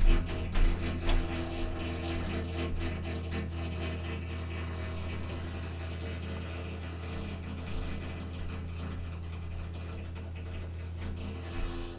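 Water heater making a steady low hum with a fast mechanical rattle on top, stopping just before the end.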